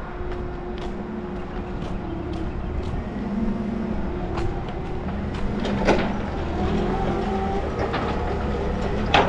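Footsteps on a dirt lot, about two a second, over a steady engine drone from yard machinery. A couple of louder knocks come about six seconds in and near the end.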